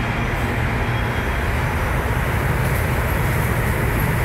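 New York City subway train running on the track: a steady, loud low rumble of wheels on rail.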